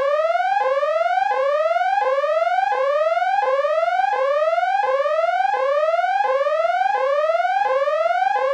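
Car alarm siren sounding a repeating rising electronic whoop: each sweep climbs steadily in pitch, then drops back abruptly, about one and a half times a second. It cuts off suddenly at the end.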